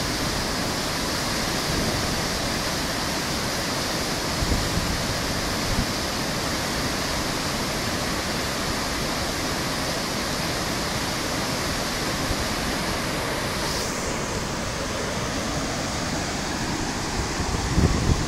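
Water from a small dam release pouring down a concrete spillway and churning into white water below: a steady rushing. Near the end, wind buffets the microphone.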